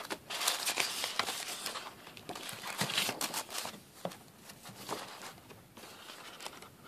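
Paper rustling and crinkling with small clicks as a printed card booklet is lifted out of a box and opened. The handling is busiest in the first couple of seconds and quieter after.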